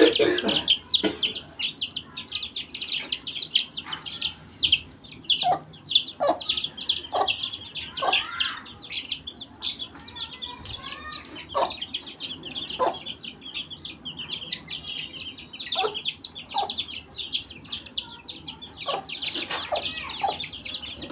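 A brood of chicks peeping continuously in shrill rapid chirps, with an adult chicken's short low clucks breaking in every second or two.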